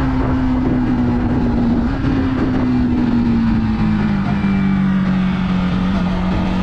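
Yamaha MT-15 V2's 155 cc single-cylinder engine and exhaust running steadily, the pitch falling slowly as the revs drop.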